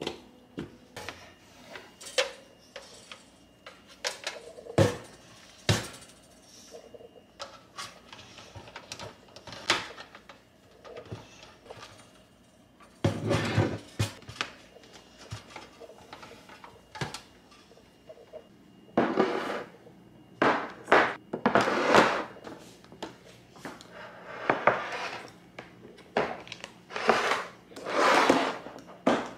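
Kitchen sounds of dishes and utensils being handled: scattered clinks and knocks, with longer rough, noisy stretches about halfway through and through much of the second half.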